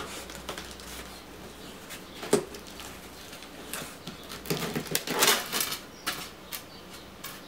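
Cardboard shipping box being opened by hand: a sharp tap a couple of seconds in as the flaps are worked, then a loud stretch of crinkly scraping about five seconds in as the white foam inner lid is pulled out, with a few light clicks after.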